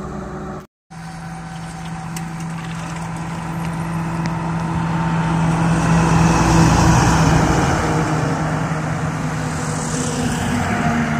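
A Tata diesel box truck approaching and driving past close by on the highway, its engine hum and tyre noise building to a peak about six seconds in, then easing as it moves away, with another rush of tyre hiss near the end. The sound cuts out completely for a moment just under a second in.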